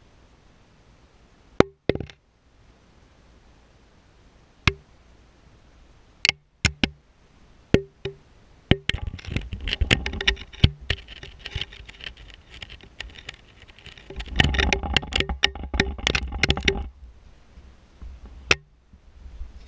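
A camera inside a rusty steel well casing knocking against the pipe wall: scattered sharp knocks, each with a short ring. Between about 9 and 17 seconds in there is a stretch of scraping and rattling with a low rumble.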